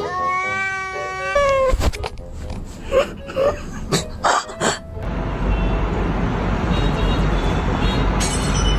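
A cat's long drawn-out meow that drops in pitch as it ends, about a second and a half in. It is followed by a series of sharp knocks, and then a steady noisy rush with a deep rumble.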